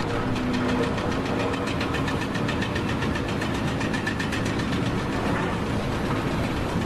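An engine or machine running steadily, with a rapid, even ticking or knocking at several beats a second.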